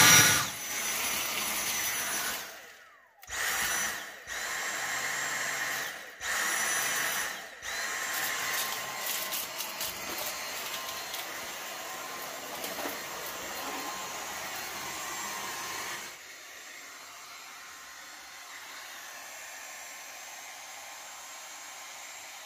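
Dyson cordless stick vacuum running on an 18 V Makita power-tool battery through a conversion adapter. It is switched on and off about four times in the first eight seconds, its motor whining up to speed each time. It then runs continuously and becomes quieter and steadier about two-thirds of the way through.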